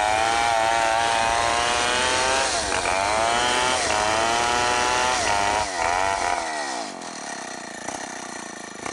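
Stihl 070 two-stroke chainsaw running at full throttle while cutting teak wood, its pitch dipping and recovering several times under load. About six and a half seconds in the throttle is released and the engine winds down to a quiet idle.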